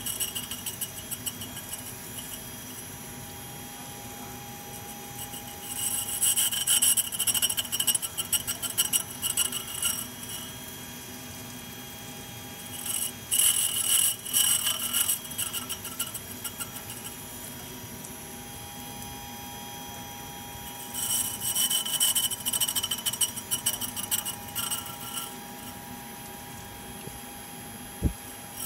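Universal tool grinder running with a steady whine while a cutting tool is ground against its spinning wheel in three passes, each a few seconds of harsh scraping grind. A single sharp click comes near the end.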